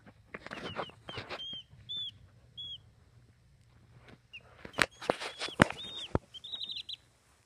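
Baby chicks peeping in short, high chirps, with a quick run of peeps near the end. Rustling and a few sharp knocks from the phone being handled against the cardboard box, the loudest knocks about halfway through.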